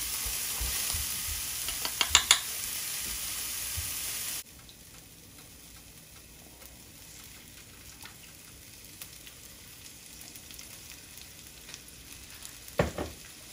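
Chopped onion sizzling as it dry-fries in its own moisture, with no oil yet, in a nonstick frying pan, stirred with a wooden spatula that scrapes and taps a few times about two seconds in. About four seconds in the sizzle cuts down abruptly to a faint hiss, and there is a single knock near the end.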